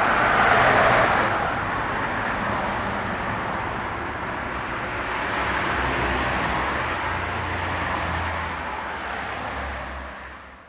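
Street traffic: cars driving past with tyre and engine noise, one passing close and loud in the first second or so and another going by around the middle. The sound fades out near the end.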